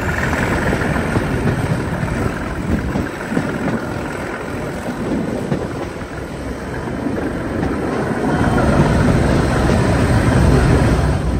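Leyland Olympian double-decker bus heard from on board: the engine runs under load over steady road noise, growing louder over the last few seconds.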